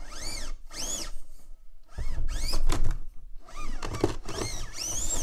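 The Furitek Micro Komodo brushless motor in a 1/18 Traxxas TRX-4M rock crawler whines in several short bursts, its pitch rising and falling with each blip of the throttle. From about two seconds in, low bumping of the truck on the rocks joins in.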